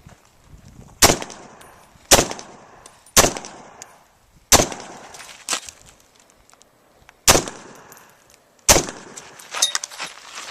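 Rifle fired in a string of about seven shots, mostly a second or so apart with a longer gap in the middle; each shot is sharp and echoes away.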